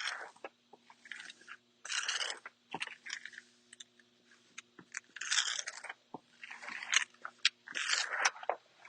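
Squeegee strokes over a vinyl wall decal and its backing paper: a handful of short, crinkly scraping strokes with small clicks between them.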